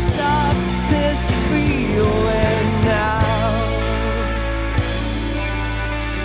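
Rock band playing an instrumental break with a bending melodic lead over drums; after about three seconds the drums thin out to a few hits under held low notes.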